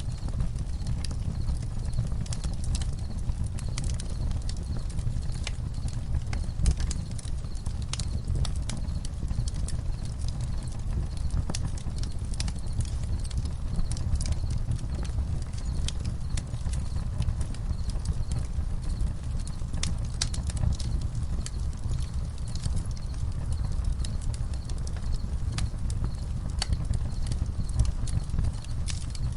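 Campfire crackling, with irregular sharp pops and snaps over a low steady rumble. Crickets chirp faintly and steadily behind it.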